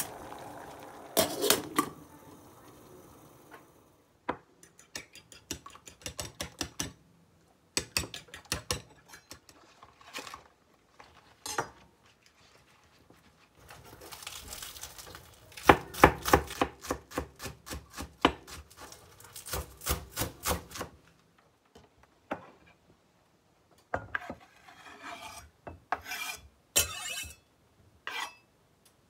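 Chef's knife slicing green onion on a bamboo cutting board: runs of quick, even strokes lasting a few seconds each, with pauses between. Near the start, cauliflower florets knock into a stainless steamer basket in a pot.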